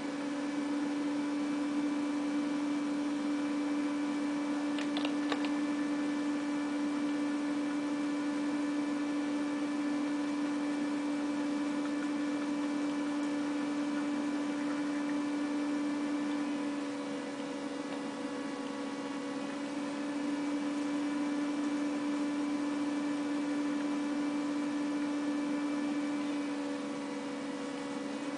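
Steady electrical hum: one constant low tone with fainter overtones over light hiss, with a couple of faint clicks about five seconds in.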